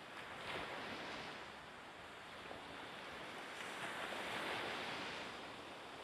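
Rushing sea surf with wind, an even noise that swells about half a second in and again around four seconds in.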